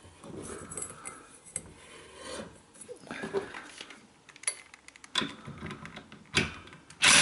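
Scattered light metallic clicks, small knocks and rubbing from hands and tools working on a lawnmower engine around its ignition coil. Right at the end a louder burst of tool noise starts.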